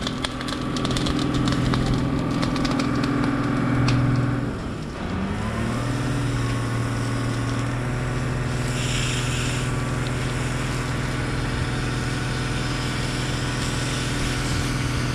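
Fire engine's motor running steadily to drive the hose pump, with the hiss of a water jet from a hand nozzle over it. A little before five seconds in the engine note dips and then climbs back up, and a louder rush of spray comes around nine seconds in.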